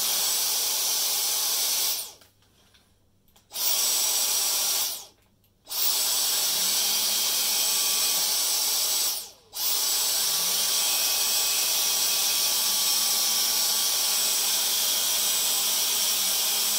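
Dyson DC35 cordless stick vacuum running with a motorized brush-bar powerhead on a hardwood floor. Its motor cuts out and starts again three times, about 2, 5 and 9 seconds in. After the later restarts a low hum rises and settles to a steady pitch.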